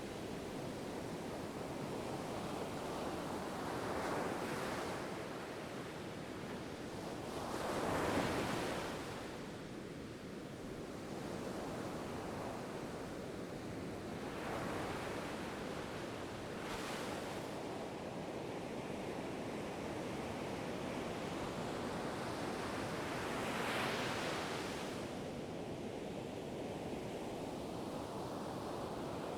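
Ocean waves breaking and washing in, a steady rush of surf that swells every few seconds, the biggest wave about eight seconds in.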